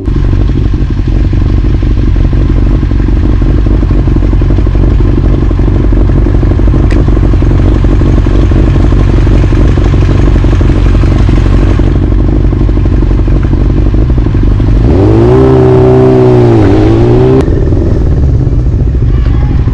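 Yamaha R6's inline-four engine running at low revs with a steady note, then revving up about fifteen seconds in, holding and dropping back before settling to the low steady run again.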